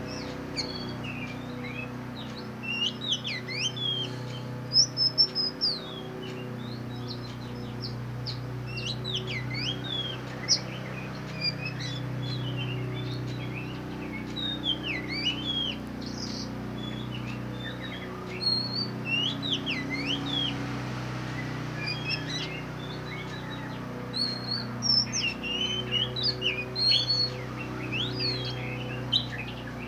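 Oriental magpie-robin of the black form (kacer hitam) singing in its cage: runs of varied, sliding whistled notes every few seconds, loudest about five seconds in and again near the end, over a steady low hum.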